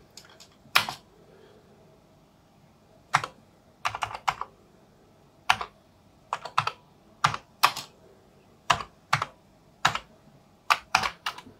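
Computer keyboard being typed on slowly: about twenty key clicks, singly and in quick runs of two to four, with pauses of up to two seconds between.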